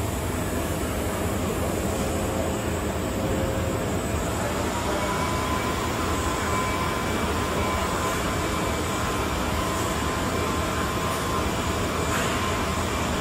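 Steady rushing and humming of factory machinery, with a faint high whine that comes in about five seconds in.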